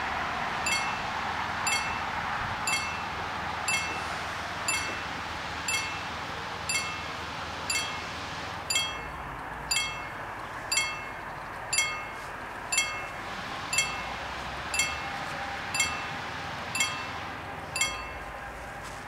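Level-crossing warning bell striking about once a second, each stroke a bright metallic ring. It warns road traffic that a train is approaching.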